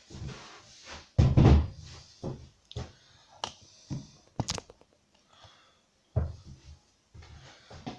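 Irregular series of thuds and knocks. The loudest and deepest comes a little over a second in, followed by smaller knocks every half second or so and one more thud about six seconds in.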